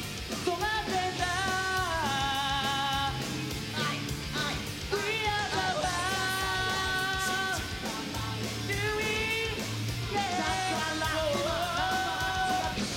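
Live pop-rock song: male voices sing long held, wavering notes in three phrases over a rock band backing of drums and guitar.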